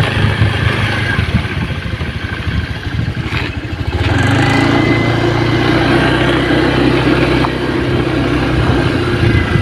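Motorcycle engine running while riding, with wind buffeting the microphone. About four seconds in, a steady engine hum comes in louder and holds.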